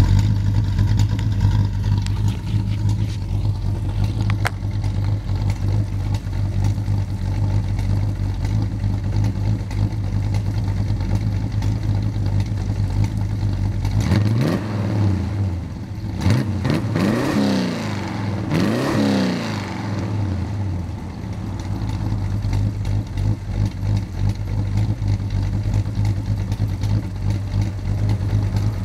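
Ford 351 Windsor V8 in a 1962 Ford Fairlane 500 idling steadily through its dual exhaust. A little past halfway it is blipped about three times, each rev rising and falling back to idle. The exhaust has a slight leak on the passenger side.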